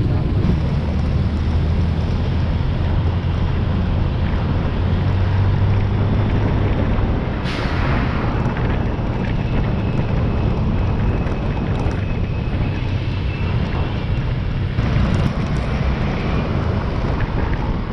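A vehicle driving along a road: a steady low engine hum with road and wind noise buffeting the mounted camera's microphone, with a brief louder rush of noise about halfway through.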